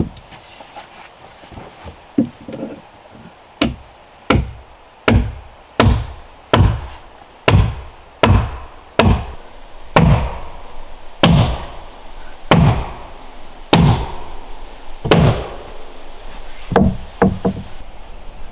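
A hand tool striking repeatedly: about a dozen heavy blows, spaced under a second apart at first and slowing to more than a second apart, some with a short metallic ring. Three quicker, lighter knocks follow near the end.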